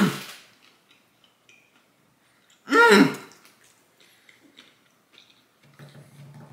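A man with a full mouth, chewing a fried chicken sandwich, lets out one loud 'mmm' that falls in pitch about three seconds in, a reaction to the taste. Faint clicks of chewing follow, then a quieter low, steady hum through his closed mouth near the end.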